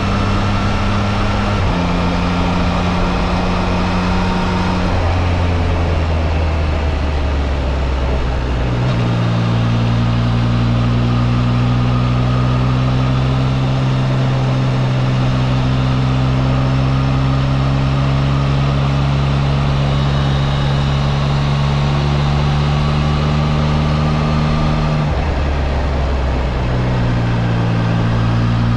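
Triumph Trident 660's inline three-cylinder engine running steadily under a riding motorcyclist. Its note jumps in pitch suddenly several times, as gears are changed.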